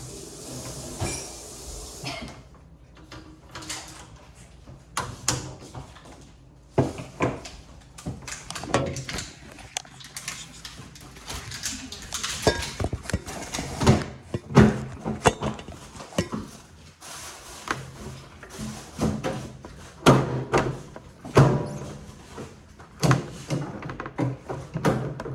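A microwave oven being handled during a repair: irregular clicks, knocks and thuds of its door and panels being opened, closed and handled, more frequent and louder in the second half.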